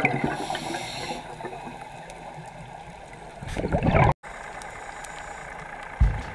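Underwater sound on a diving camera: a steady hiss with the gurgle of scuba divers' exhaled bubbles, swelling into a louder rush of bubbles just before four seconds in, then a brief dropout.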